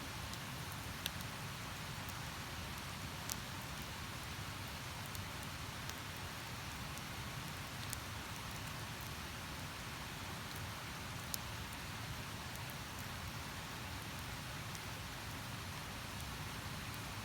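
A river running steadily beside a campfire, with occasional sharp pops and crackles from the burning wood.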